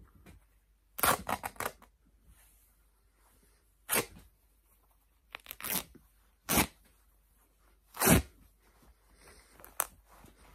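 A small Superdry hoodie being ripped apart by hand: a quick run of sharp fabric rips about a second in, then single rips every second or two, with soft cloth rustling between them.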